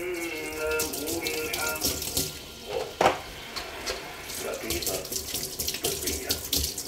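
Kitchen tap running into a stainless steel sink, the stream splashing on the basin, with hands rinsing under it. One sharp knock about three seconds in.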